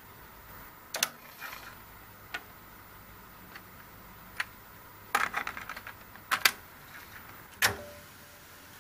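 Clicks and clunks from a Pioneer CT-F1000 cassette deck's door and transport as the door is ejected open and a cassette is handled and loaded. Single clicks come about one, two and a half and four and a half seconds in. A rapid flurry of clicks follows about five seconds in, then two loud clunks and a last clunk near the end.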